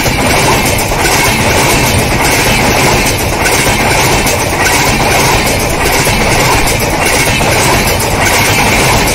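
LHB passenger coaches of a Humsafar express passing close at speed: a loud, steady rumble of steel wheels on rail, with a rhythmic clickety-clack that pulses about once a second.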